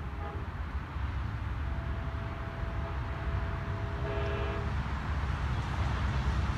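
Train horn sounding one long chord of several notes from about two seconds in, lasting about three seconds, over a low rumble that grows louder as the train approaches.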